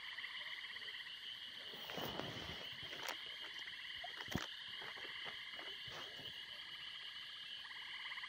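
A steady, fast-pulsing chorus of frogs calling, faint throughout. A few soft clicks and rustles from handling fishing tackle over a plastic sheet come about 2, 3, 4½ and 6 seconds in.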